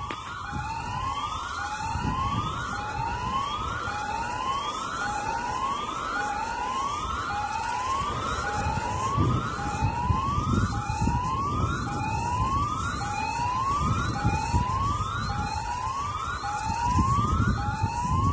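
Tsunami warning siren sounding a repeated rising whoop, each sweep climbing in pitch for about a second and cutting off, then starting again, over a low rumble.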